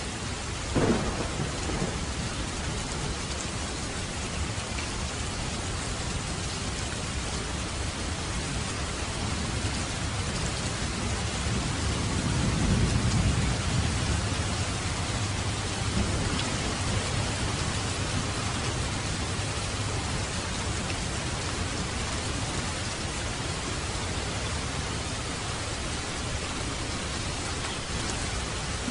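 Steady heavy rain falling, with a sharp thunderclap about a second in and a low rumble of thunder swelling and fading around the middle.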